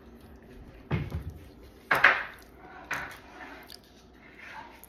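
Eating noises: a few short knocks and clatters from food containers and utensils, the loudest about two seconds in, with chewing.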